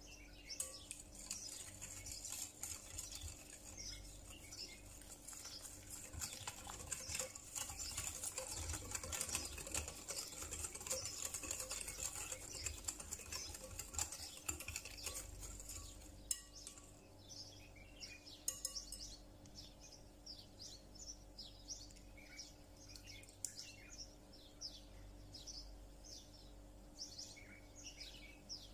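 A utensil stirring flour-and-milk batter briskly in a glass bowl: rapid scraping and clicking against the glass that stops about 16 seconds in. Small birds chirp in the background over a faint steady hum.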